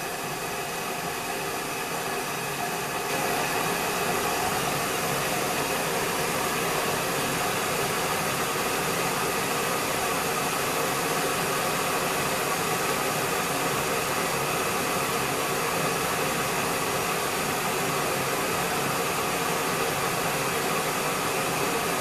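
Defort DEK-317-F glass electric kettle heating a full load of water: a steady hiss that gets a little louder about three seconds in. The water is heating and has not yet reached the boil.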